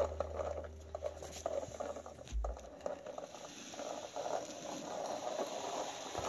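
Plastic toy car's wheels rolling over a hard floor as it is pushed by hand, making a light, irregular rattling patter.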